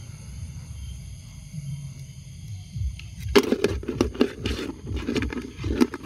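Steady high-pitched trilling of night insects over low rumbling handling noise. A bit over three seconds in, loud irregular scraping and clicking starts and keeps going.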